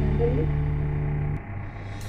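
Background music: a held, sustained chord that cuts off about two-thirds of the way through, leaving a quieter stretch.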